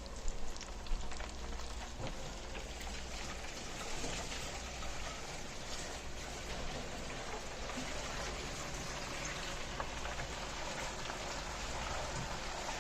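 Cornmeal-coated shrimp frying in hot oil, with a steady sizzle.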